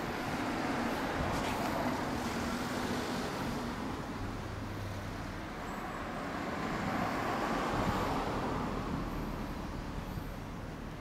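Road traffic going past, a rushing noise that swells and fades twice.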